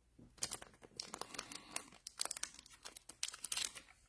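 Trading card packaging crinkling as cards and packs are handled: a run of irregular small crackles and rustles.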